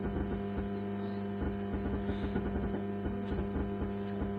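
Amplifier playing a song through its speaker with a deep, steady mains-type hum running under the music and distorting it. The hum is the fault of a newly fitted amplifier board and is cured by earthing the metal USB player module to the chassis, so it is the sign of a grounding fault.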